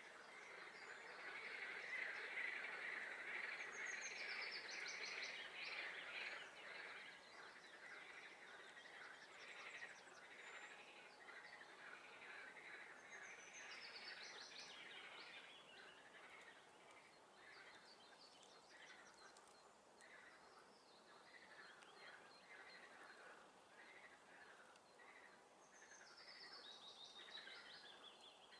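A chorus of frogs calling in a swamp, a dense pulsing din that is strongest in the first several seconds. Over it a songbird repeats a short, high, falling trilled phrase three times, about ten seconds apart.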